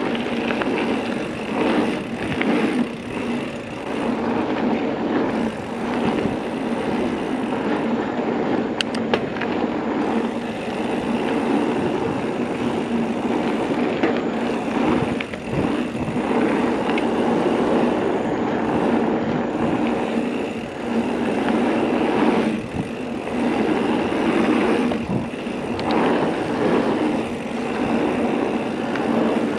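Mountain bike being ridden fast on a gravel and dirt trail: tyres rolling over the surface and wind rushing over the camera's microphone make a steady noise, broken by occasional short knocks from bumps.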